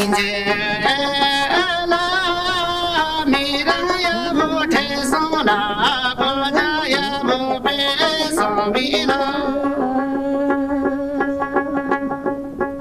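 Background music: a singing voice carrying a wavering melody over sustained instrumental chords with plucked strings. The voice stops about ten seconds in and the instruments go on.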